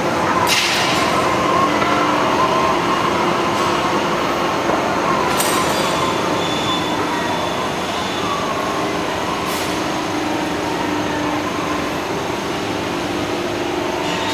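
Multi-tier stainless steel cooling conveyor running: a steady mechanical hum and rattle with a few held tones. Three short hisses cut in, about half a second in, around five seconds and near ten seconds.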